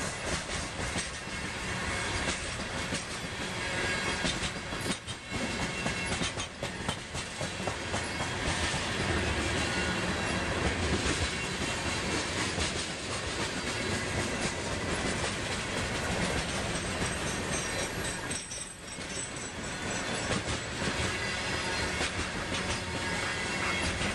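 Freight train cars rolling past at close range: a steady rumble of steel wheels on rail, with quick repeated clicks as the wheels cross rail joints.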